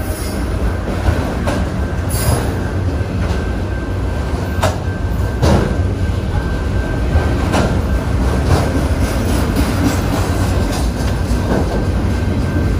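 Loaded autorack freight cars rolling past at close range: a steady, loud low rumble of steel wheels on rail, with sharp clacks every second or two and a faint steady high whine over it.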